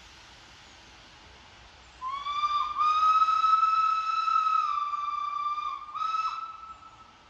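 Steam locomotive whistle: one long blast of about four seconds, catching briefly just after it starts and dropping slightly in pitch towards its end, then a short second blast.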